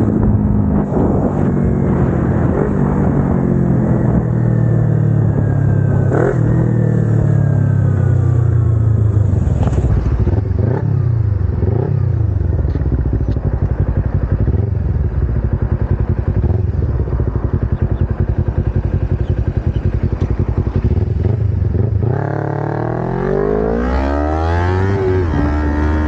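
Kawasaki Ninja 250R's parallel-twin engine on the move: the revs fall away over the first ten seconds or so as it slows. It then runs low and steady, and near the end it revs up sharply as the bike accelerates.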